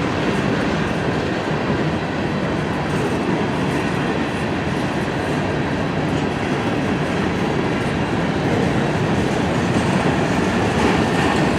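Cars of a long Canadian National freight train rolling steadily past, the continuous rumble and clatter of steel wheels on the rails.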